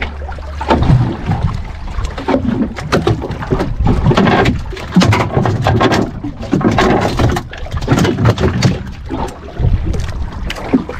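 Uneven rushing noise with scattered knocks aboard a small fishing boat at sea, loud and surging throughout.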